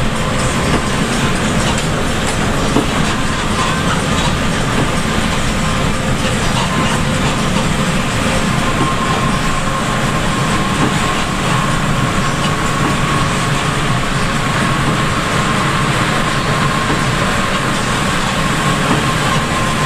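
Inside a coach bus at highway speed in heavy rain: a steady drone of engine and tyres on the wet road, with a thin steady whine running through it.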